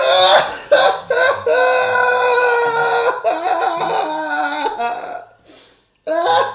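A boy loudly wailing in exaggerated fake crying. There are a few short high cries, then a long held high-pitched wail that wavers and breaks off, and another cry starts near the end.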